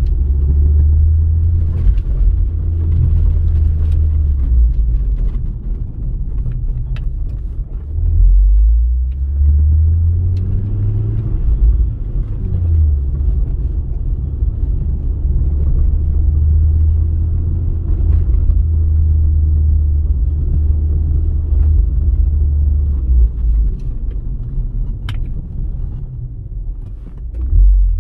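Ford Focus ST Mk2's turbocharged 2.5-litre five-cylinder engine and road noise in steady, gentle driving: a low rumble whose pitch dips about eight seconds in and then rises again, with a few faint clicks.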